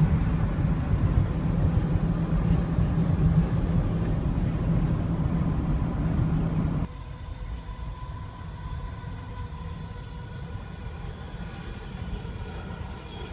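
A car driving, with steady engine and road rumble. The rumble is louder for about the first seven seconds, then drops suddenly to a quieter rumble with a faint steady hum.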